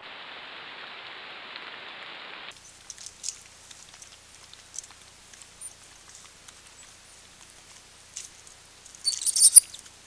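Steady hiss for the first couple of seconds. Then white-nosed coatis climbing right at the trunk make scattered clicks and scratches of claws on bark, ending in a loud burst of high squeaks and scrabbling near the end.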